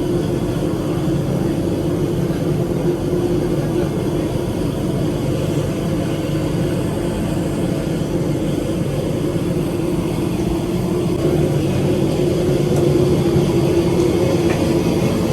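Steady drone of an airliner cabin during boarding: air-conditioning and engine hum with a constant low tone, growing a little louder near the end, with faint voices in the background.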